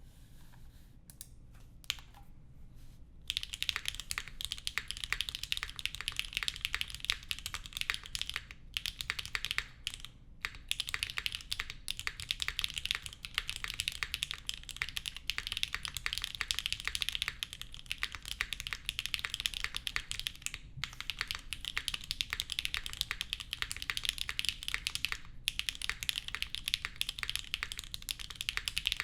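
Typing on a Geass60 Revival custom mechanical keyboard with Gateron Slay switches, GMK Hyperfuse keycaps and a polycarbonate plate on 90A gaskets. A few scattered keystrokes give way to fast, continuous typing about three seconds in, broken by a few short pauses.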